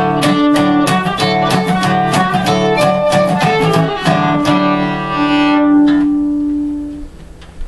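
Fiddle and acoustic guitar playing a tune together, the guitar strummed in a steady rhythm under the bowed fiddle melody. The tune ends on a long held fiddle note about five seconds in, which fades out about two seconds later.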